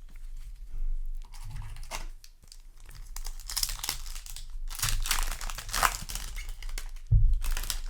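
Foil Yu-Gi-Oh! booster pack wrapper being crinkled and torn open by hand, in several crackling bursts with a few soft knocks of handling, the loudest near the end.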